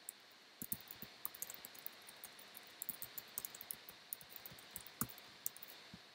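Typing on a computer keyboard: light, irregular key clicks in quick runs with short pauses.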